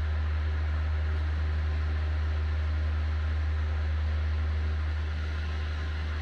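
A steady low mechanical hum with a layer of hiss, unchanging throughout.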